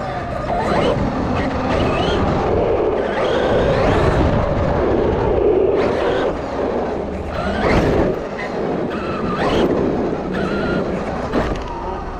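Traxxas Maxx RC monster truck's electric drivetrain heard from an onboard camera: the motor whine rises and falls with several bursts of throttle over the rumble and clatter of the tyres and chassis on concrete.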